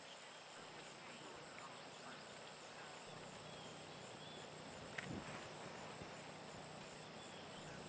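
Steady, evenly pulsing high buzz of insects calling in the grass and trees, with a single sharp click about five seconds in.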